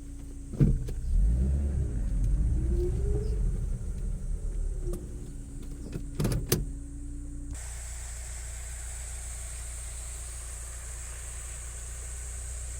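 Mitsubishi Pajero Mini: a low rumble with a sharp click near the start and another about six seconds later, and between them a sound rising and then falling in pitch. About seven seconds in the sound changes abruptly to a steady hiss over a low hum.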